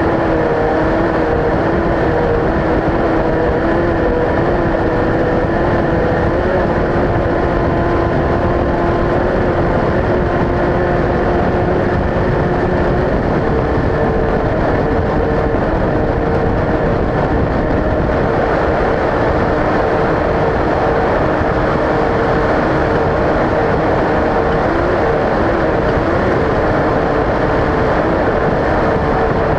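Off-road race vehicle engine running at a steady speed under load, with a dense rumble of driving noise. Its pitch holds for several seconds at a time and shifts about halfway through.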